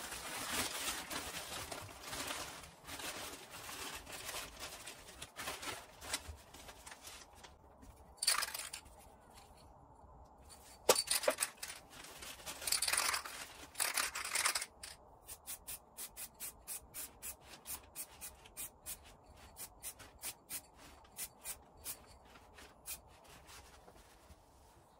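Thin plastic bin-bag sheeting crinkling and rustling as it is wrapped over a wood lathe. Several short hisses of an aerosol spray can follow. Then comes an even run of sharp clicks, about three or four a second.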